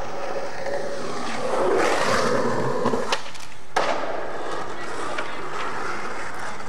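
Skateboard wheels rolling on pavement, swelling louder about two seconds in. Two sharp clacks of the board come about three and three-and-a-half seconds in, then the rolling goes on.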